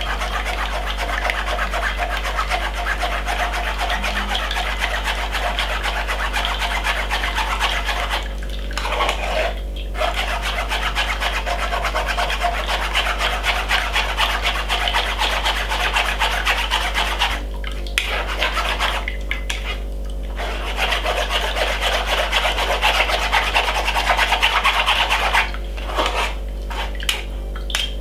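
Metal spoon scraping and pressing blended cucumber pulp through a wire-mesh sieve: a rapid, continuous rasping scrape that stops briefly a few times.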